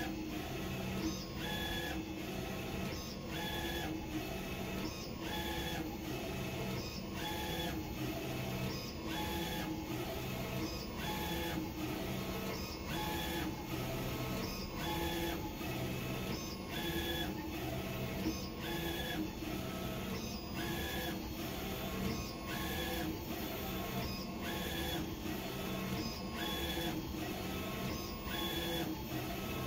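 UV flatbed inkjet printer printing, its print-head carriage shuttling back and forth in passes about once a second. Each pass brings a short whine from the carriage drive over a steady hum from the machine.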